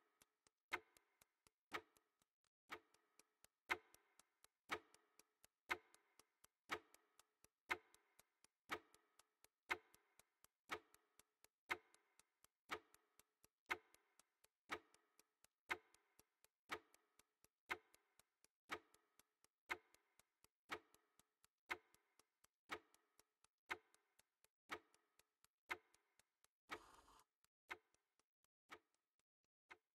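A clock ticking faintly and very regularly, one louder tick about every second with fainter ticks between, dying away near the end. A brief soft rustle about three seconds before the end.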